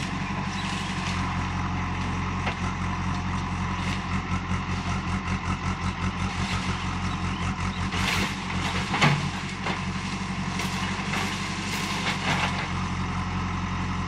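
Diesel engine of a JCB backhoe loader running under load as its bucket pushes against a palmyra palm. Its note pulses for a few seconds in the middle, and several sharp cracks come between about 8 and 12 seconds in.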